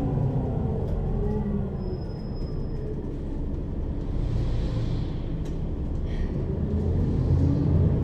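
Mercedes-Benz Citaro city bus with a ZF Ecomat 2 6HP-592 C automatic gearbox, heard from inside the passenger cabin over the second axle while driving. The engine note falls, then rises, drops again a little after halfway and climbs once more, as the bus pulls through its gears.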